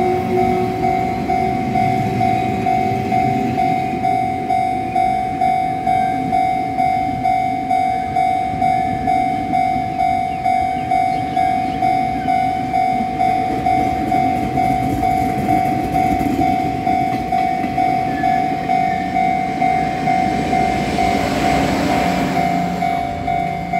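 Level-crossing warning bell ringing in steady, even pulses about twice a second over the rumble and wheel noise of a passenger train passing, its diesel locomotive's engine sounding and falling in pitch at first. Near the end a louder rushing noise swells as the train's power van goes by.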